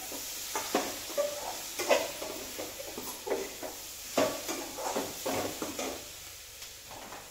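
Long metal spatula stirring and scraping vegetables frying in a metal kadhai, in irregular scrapes and clinks over a light sizzle.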